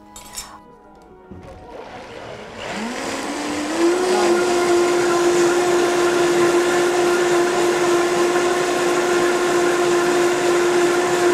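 A countertop blender blending a jar of cilantro. After a click near the start, the motor spins up, climbing in pitch for about a second and a half, then runs steadily at full speed.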